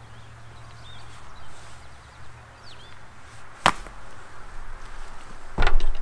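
Two sharp knocks about two seconds apart, the second the louder: a hog-panel gate knocking against its wooden gate frame.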